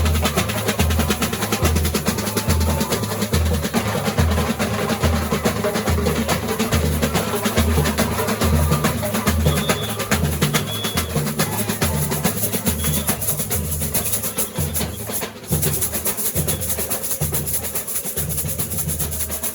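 Samba school bateria (drum corps) playing: deep surdo bass drums pulse about twice a second under a dense, continuous rattle of snare drums and small percussion, with a momentary dip about fifteen seconds in.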